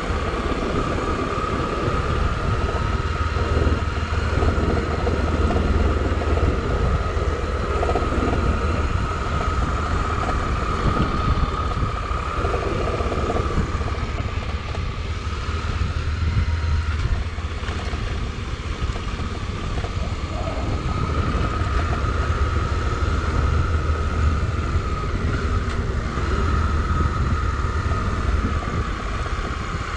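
Motorcycle riding at a steady pace: a constant engine drone with a steady whine, and wind rushing over the microphone.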